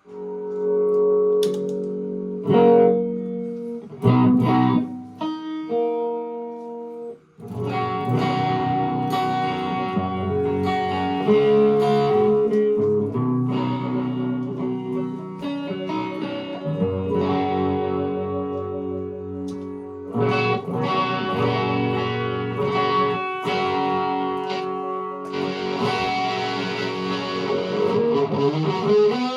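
Electric guitar played through a drop-tuned Zoom G1Four patch, a Behringer OD300 overdrive pedal and a Vox MV50AC amp, with a distorted tone. A few held chords with short gaps, then continuous riffing from about seven seconds in, with a rising slide near the end.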